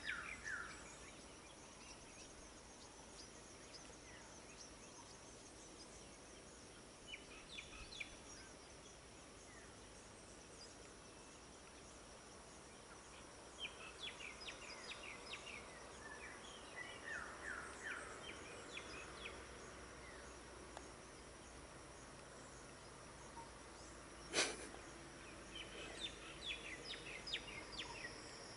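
Quiet outdoor ambience: a steady high insect drone, with birds calling in several runs of short, falling chirps. A single sharp knock sounds about two-thirds of the way through.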